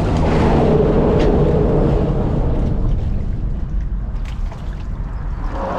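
A hooked sheepshead thrashing and splashing at the water's surface, over a steady low rumble, with a couple of sharp ticks.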